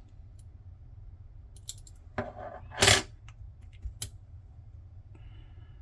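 Small metal lock parts, the pins and springs of a padlock core, spilling out and clinking onto a hard surface. A few sharp metallic clinks, the loudest about halfway through.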